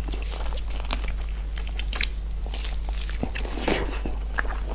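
A person eating close to the microphone: irregular crunching bites and chewing, with a steady low hum underneath.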